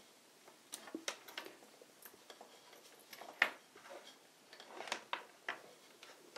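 Light clicks and taps of small DC barrel-jack plugs and their cables being handled and fitted together, a scattered handful of faint clicks with one sharper click about three and a half seconds in.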